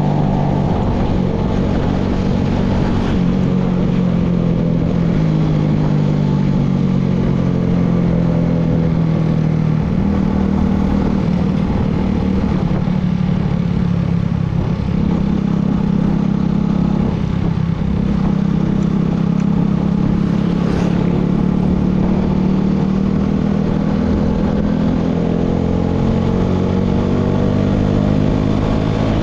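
Motorcycle engine running steadily while riding, its pitch drifting with speed and rising near the end as it accelerates.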